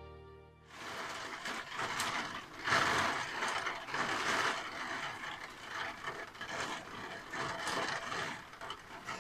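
Rain pattering on a roof window: a dense, irregular crackle of drops hitting the glass that starts suddenly about a second in.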